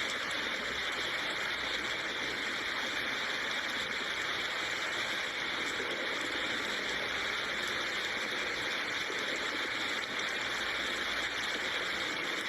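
Steady rainfall: an even, unbroken hiss of rain with faint fine patter.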